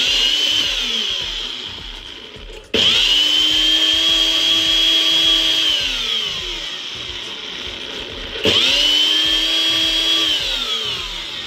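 NutriBullet blender motor running in three pulses as the cup is pressed down, blending beetroot and milk into a puree. Each pulse starts suddenly with a high whine that slides down in pitch as the motor slows; the second and third come a few seconds in and near the end.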